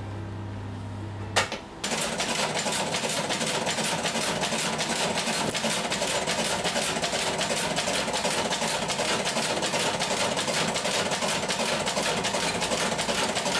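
Shoe-repair hammering machine beating the newly stitched leather sole with rapid, evenly spaced strokes to flatten and settle it. The strokes start about two seconds in, after a low motor hum and a single click.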